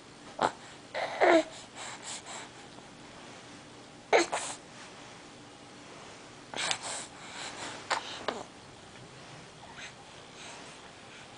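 A four-month-old baby on his tummy making a handful of short, breathy grunts and huffs, spread over several seconds. One or two of them have a brief falling voice in them.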